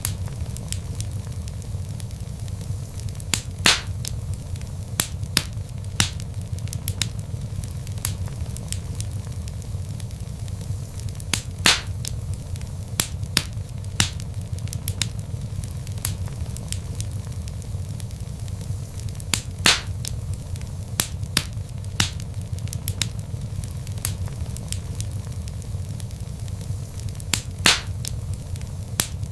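Wood logs burning in a fireplace: a steady low rumble of flames with frequent sharp crackles and occasional louder pops.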